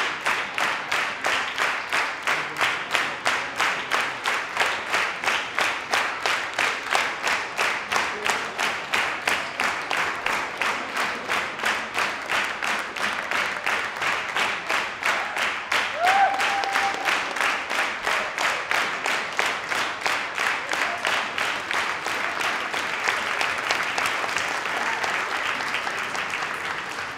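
Audience clapping in unison, about three claps a second, loosening into ordinary unsynchronised applause near the end. A single cheer rises briefly over it about halfway through.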